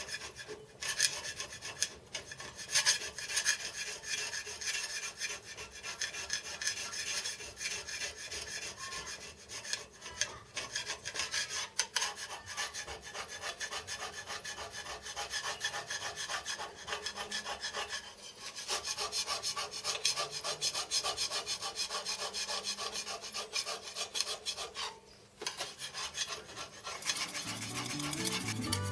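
Metal compound-slide plate rubbed back and forth on sandpaper to lap it flat: a continuous scratchy rasp of repeated strokes, with a brief pause near the end.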